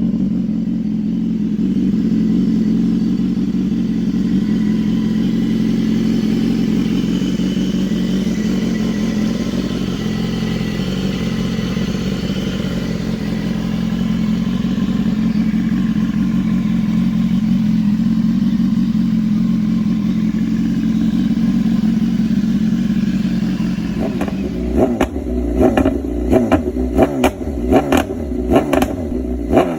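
BMW S1000RR inline-four through an SC Project CR-T exhaust, idling steadily. About 24 seconds in it breaks into a quick series of throttle blips, with sharp pops and crackles from the exhaust.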